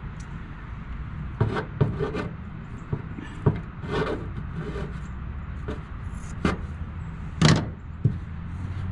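Handling noise from cutting and working a piece of polyester fleece into a sealant-coated metal gutter with scissors and fingers: scattered rustles, rubs and light knocks, the loudest about seven and a half seconds in, over a steady low hum.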